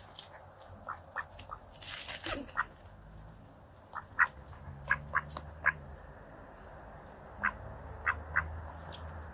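Mallards feeding up close, with short quacks and sharp pecking clicks scattered irregularly throughout. The clicks come thickest from about four to six seconds in.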